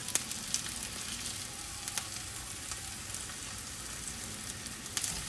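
Beef smashburger patties and sliced onions sizzling steadily in a nonstick skillet. A few sharp clicks come from the plastic spatula against the pan as the patties are flipped.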